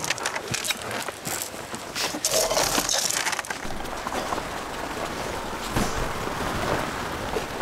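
A crowd of Siberian huskies jostling close together on snow: crunching, scuffling and clicking. It is busiest with bursts in the first three seconds or so, then settles into a steadier rustle.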